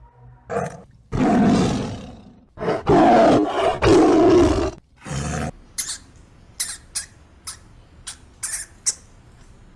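A large animal roaring three times in quick succession, followed by a string of short, high-pitched calls.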